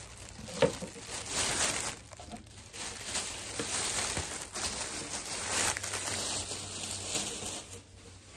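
Thin plastic Dollar Tree shopping bag rustling and crinkling in irregular bursts as a hand rummages inside it, dying down near the end.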